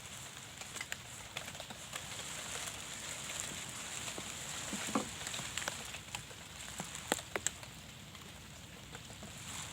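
Rain falling steadily, with scattered sharp drops ticking on nearby surfaces.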